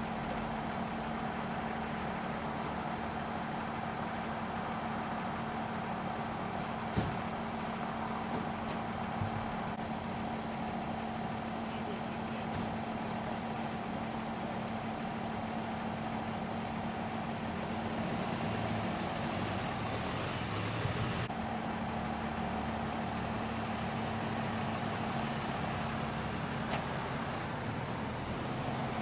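Parked diesel fire engine idling with a steady, even hum, a few sharp clicks over it and the level swelling slightly about two-thirds of the way through.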